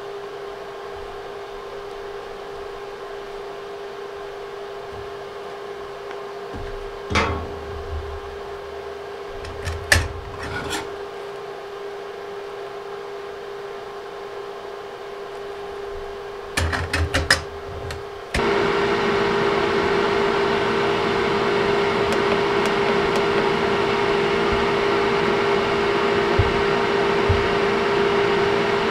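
Steady hum with a few light metallic clicks and knocks as thin aluminium plates and a TIG torch are handled on a steel bench. About two-thirds of the way through, a louder steady whir with a stronger hum cuts in abruptly: a TIG welding machine's cooling fan running.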